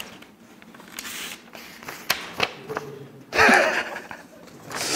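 Sheets of paper rustling and crinkling as a letter is unfolded and handled, with a few light clicks. About three and a half seconds in, a young man bursts into a short laugh, and a brief hiss follows near the end.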